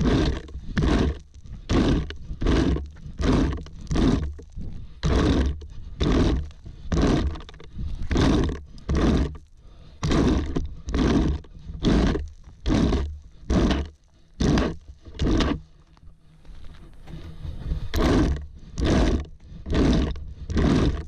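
Plastic garden rake scraping in repeated strokes across dry lawn grass and small loose rocks, with a steady rhythm that pauses for a couple of seconds about two-thirds of the way through, then resumes.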